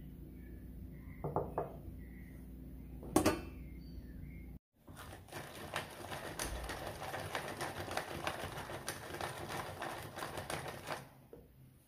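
A hand-operated nut chopper crunching walnuts, a dense run of rapid crunching clicks for about six seconds from around the middle. Before it, birds chirp faintly and a glass bowl knocks on the counter, once sharply about three seconds in.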